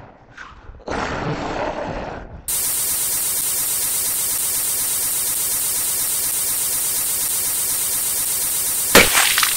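A loud steady hiss fills the sealed glass chamber as it clouds over. About nine seconds in, a sudden sharp burst cuts through it as the severed head explodes. The hiss is preceded by a couple of short rushing noises in the first two seconds.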